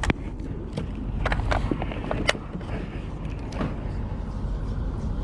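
Small spinning reel, a Shimano Ultegra 1000, being cranked while fighting a hooked fish: irregular clicks and short creaks from the reel and rod over a low steady rumble of wind.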